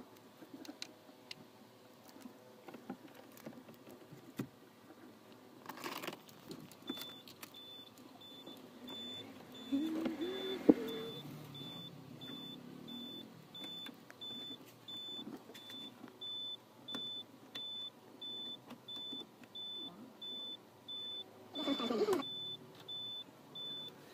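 A high electronic warning beep repeats steadily, a little faster than once a second, from about seven seconds in. Around it come clicks and rustling from hands handling wiring connectors and the head unit, with a louder rustle near the start and again near the end, and a sharp click with a short warbling tone about ten seconds in.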